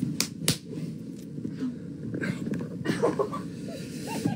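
Hands slapping together in a quick handshake routine: a run of sharp slaps, about three a second, that ends within the first half-second.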